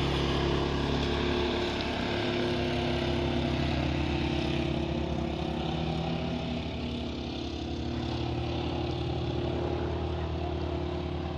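An engine running steadily: a continuous low drone held at a few unchanging pitches, with a hiss above it.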